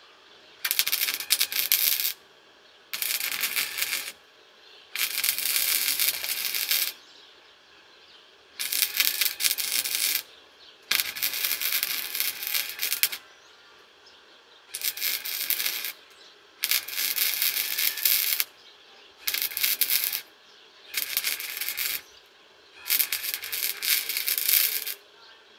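Titanium Easy-Flux 125 flux-core wire-feed welder's arc crackling as it welds steel, in about ten short runs of one to two seconds each with brief pauses between.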